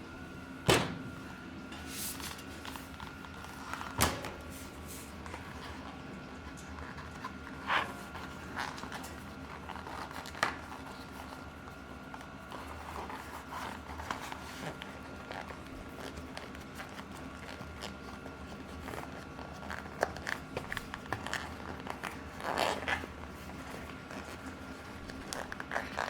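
Hands working a mountain bike tire and a foam flat-proof tire insert: scattered sharp knocks and clicks with rustling in between, a busier patch of clicking and rustling near the end, over a faint steady hum.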